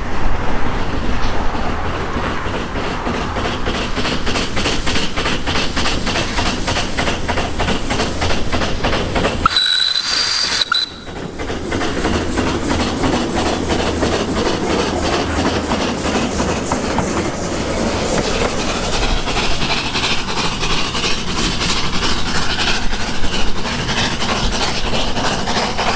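The Coffee Pot steam railcar (Steam Motor Coach No. 1) working uphill, its exhaust beating in a rapid, even rhythm over the sound of the wheels on the rails. About ten seconds in there is a brief high-pitched tone, and then the sound drops out for a moment before the beat resumes.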